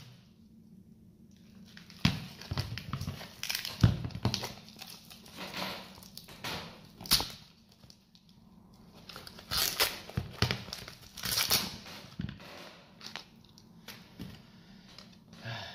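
Peel ply being ripped and peeled off a cured resin-infused carbon fibre part, in irregular bursts of tearing and crinkling that begin after a quiet second or two.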